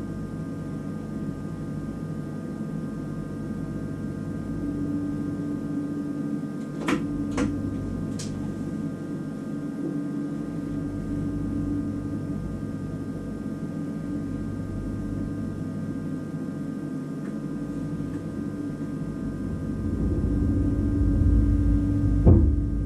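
Cab of a stationary SNCB AM08 (Siemens Desiro ML) electric multiple unit: the steady hum and drone of the train's onboard equipment, with several fixed tones. Two sharp clicks come about seven seconds in and a fainter one a second later; the low rumble grows louder about three seconds before the end, with a knock near the end.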